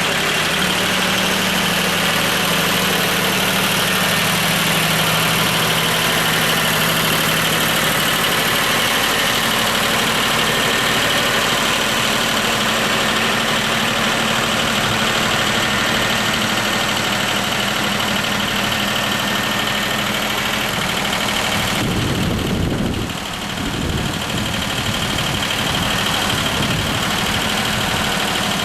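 John Deere 1050 tractor's three-cylinder diesel engine idling steadily, with a brief shift in the low hum about 22 seconds in.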